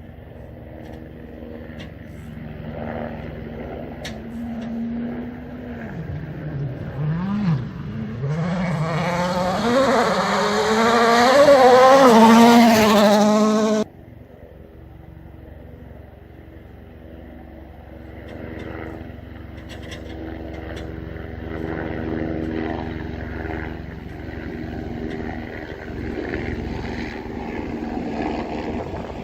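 A rally car on a gravel stage approaching at full throttle, its engine note rising and dipping through gear changes and growing loud as it comes close, then cutting off abruptly about halfway through. After that a steadier engine drone builds again toward the end.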